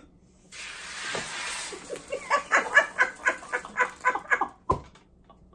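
A fizzing hiss as a plastic soda bottle is opened and its carbonated drink sprays out, followed by someone laughing hard in quick, short laughs, about four a second. A single thud comes near the end.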